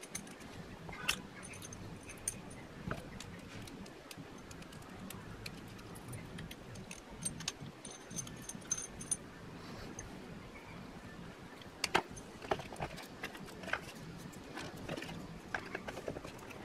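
Hands working with cable wires and heat-shrink tubing on a wooden table: scattered light clicks, clinks and rustles. A cluster of sharper clicks comes about twelve seconds in.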